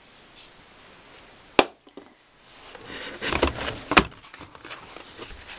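Handling noises: a sharp click about a second and a half in, then rustling and scraping as a hand rummages among items in a cardboard shipping box, with another knock about four seconds in.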